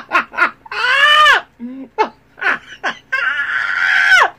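A woman laughing hard in high-pitched squeals: short choppy bursts of laughter and two long squealing cries, the second one near the end and the longer of the two.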